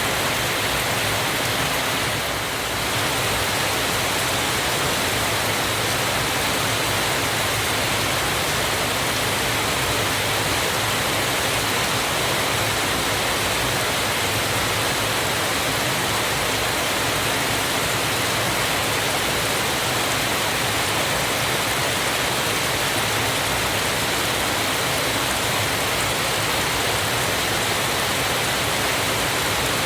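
Waterfall: water pouring and splashing in a steady, dense rush.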